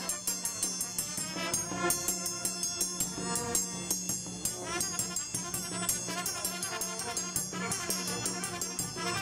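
A traditional Romanian brass band (fanfară) playing a march: trumpets and other brass over a steady beat of bass drum and cymbal.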